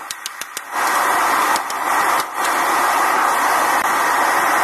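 A hand hammer striking red-hot steel on an anvil in quick blows, about seven a second, stops less than a second in. A steady, loud rushing noise from the homemade forge then takes over as the steel goes back in to heat.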